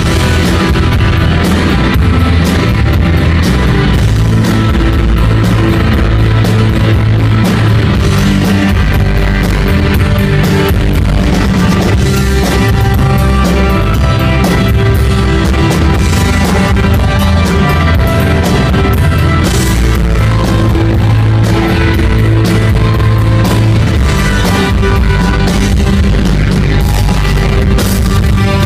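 Rock band playing live and loud: acoustic and electric guitars over a steady drum-kit beat.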